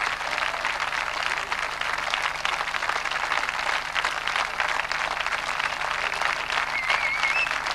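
Studio audience applauding, a steady dense clapping from many hands.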